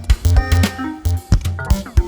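Background music: an upbeat instrumental track with a steady drum beat and pitched melody notes.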